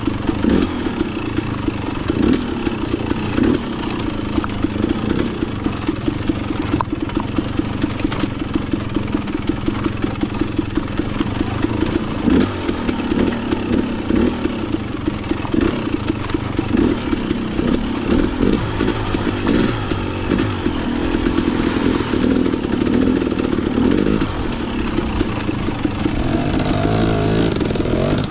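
An off-road motorcycle engine running steadily as the bike is ridden along a rough mountain trail, its note shifting with the throttle.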